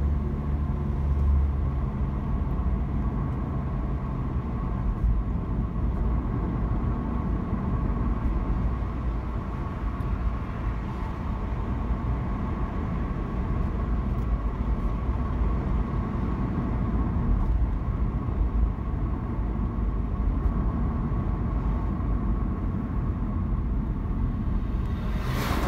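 Steady low rumble of engine and tyre noise from a car being driven on a paved road. A brief rush of noise comes near the end.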